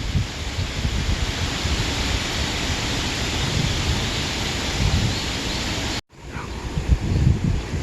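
Wind blowing through grass, a steady rushing hiss with low gusty rumbles of wind on the microphone. About six seconds in, the sound cuts out for a moment, then comes back thinner and gustier.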